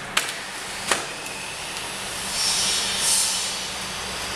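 Bamboo poles knocking twice as a bamboo roof is worked onto the posts of a bamboo frame, then a hissing rush that swells and fades over about a second and a half.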